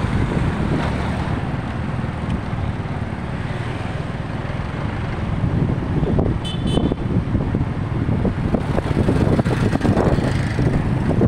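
Street traffic noise with wind buffeting the microphone, a steady dense rumble, and a brief high double beep about six and a half seconds in.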